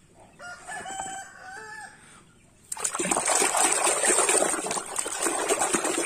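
A rooster crows once, faintly, in the first two seconds. Then, from just under three seconds in, a hand sloshes and splashes water in a plastic tub, louder than the crow.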